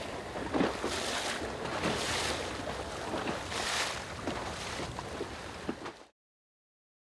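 Water splashing and churning in repeated surges as the Greyshark autonomous underwater vehicle thrashes at the surface while diving. The sound cuts off suddenly about six seconds in.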